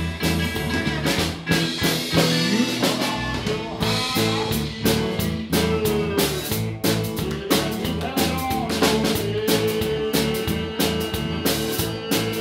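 Live rock band playing: electric guitars and a drum kit, with a steady beat and held notes that bend in pitch.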